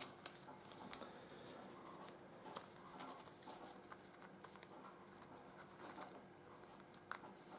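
Faint, scattered light clicks and rustles of glossy trading cards being handled and sorted by hand on a table.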